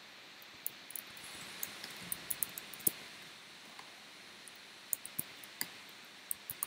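Typing on a computer keyboard: soft, irregular keystroke clicks in short runs with brief pauses between them.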